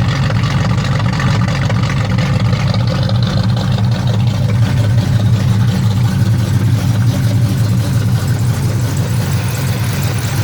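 Freshly rebuilt small-block Chevy V8 running at a steady idle, its exhaust going through headers and glass-pack mufflers, with a strong low rumble; the engine is not yet broken in.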